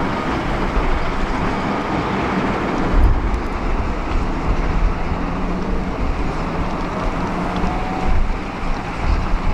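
Heavy diesel excavator running steadily in a quarry, a dense low rumble with a faint engine hum. A low thump comes about three seconds in.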